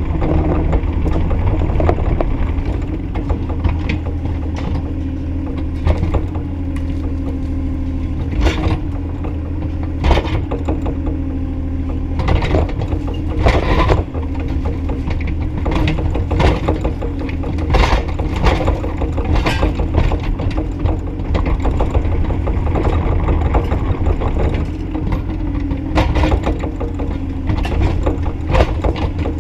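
Bobcat E35i mini excavator's diesel engine running steadily under load, with irregular clanks and knocks from the bucket and arm working.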